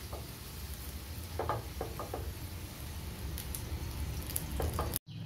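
Desi ghee sizzling on a hot non-stick tawa under a beetroot paratha, with a few light scrapes and taps of a steel spoon spreading it, over a low steady hum; the sound cuts off suddenly near the end.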